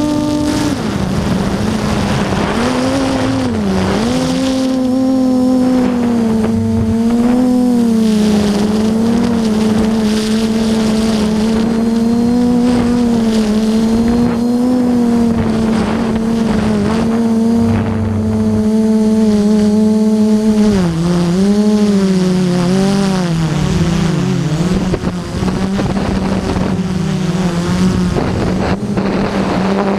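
Electric motors and propellers of a multirotor drone whining steadily in flight, the pitch dropping just under a second in, dipping about four seconds in and wavering up and down between about 21 and 25 seconds in as the throttle changes. Wind rushes over the microphone underneath.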